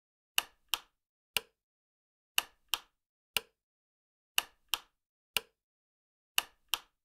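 Chess move sound effects: short sharp clicks as pieces are set down on the board, in a repeating pattern of a quick double click and then a single click about a second later, every two seconds.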